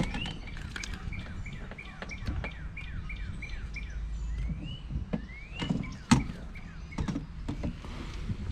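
A songbird singing: a rising whistle, then a quick run of short falling whistled notes, several a second, repeated twice. A sharp knock comes just after six seconds in, over a low rumble.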